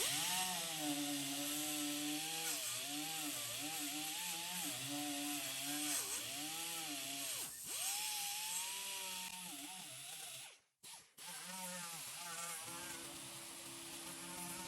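Handheld power grinder working on car-body sheet metal, its motor pitch dipping and recovering as the disc is pressed into the rusty panel, with a hiss of abrasion over it. The sound drops out briefly twice about ten seconds in, then comes back at a steadier pitch.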